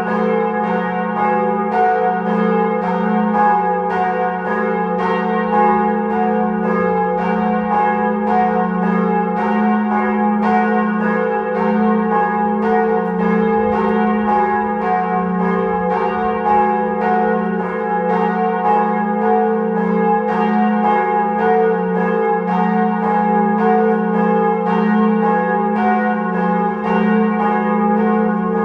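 Church bells ringing a continuous peal, one strike after another at about three a second, over a steady hum of the bells' overlapping ringing tones.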